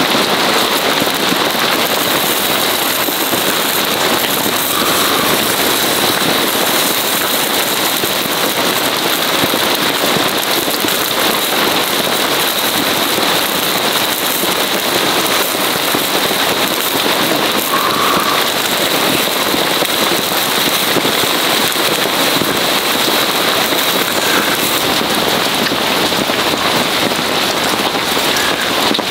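Heavy rain falling steadily on the tent fabric, heard from inside, over chicken yakitori sizzling and crackling on a charcoal grill.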